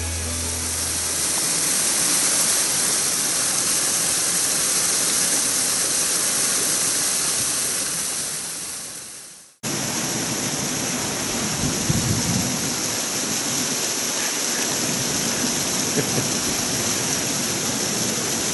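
Small waterfall on a mountain stream, water rushing and splashing steadily. About halfway through the rush fades away, and after a moment's silence a similar steady rush of running water starts again, with a few soft thumps.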